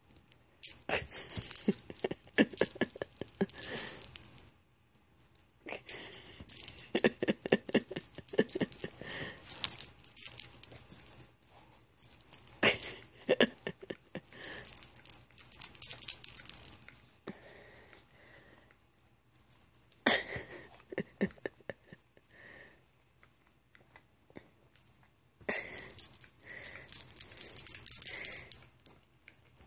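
Metal ID tags on a dog's collar jingling in several bursts of a few seconds each as a hand scratches the dog's chest and belly.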